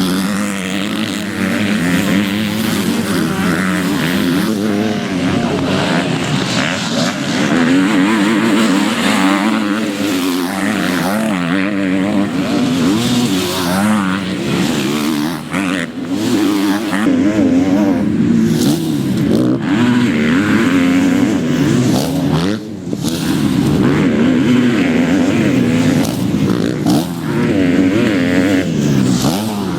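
A field of motocross bikes racing, many engines overlapping and revving up and down as they accelerate and shift. Brief dips in the racket around the middle and near the end.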